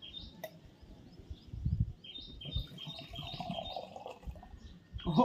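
A bird chirping over and over, short calls about three times a second, over low knocks and rustles of handling.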